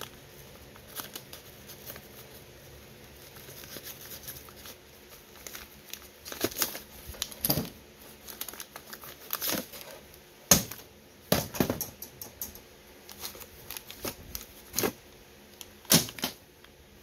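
Paper-wrapped, string-tied packets of Mosin rifle cartridges being pulled out of a metal ammo tin and set down on a table: irregular paper rustling with sharp knocks as packets land, the loudest a little past halfway and near the end.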